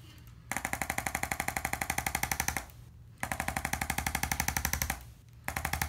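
Handheld percussive chiropractic adjusting instrument tapping rapidly against the upper back in three bursts of about two seconds each, with short pauses between. Each burst is a fast, even rattle of taps.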